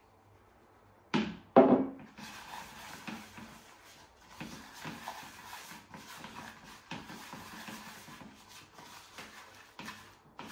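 Hand mixing freshly wetted, coarse groundbait with crushed maize in a plastic tub: a continuous rustling and scraping with many small knocks. Two sharp knocks come about a second in.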